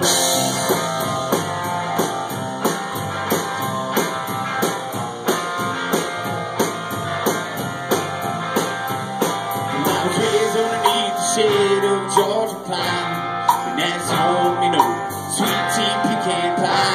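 Live band playing an instrumental passage of a country-rock song: electric guitar, bass guitar and a drum kit keeping a steady beat.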